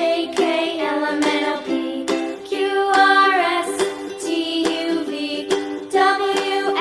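Background music: plucked strings, ukulele-like, under a melody line.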